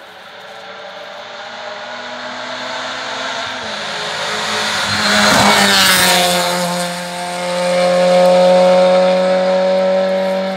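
Rally car approaching at speed, growing louder until it passes close by about halfway through, then its engine note holds high and steady as it carries on up the stage.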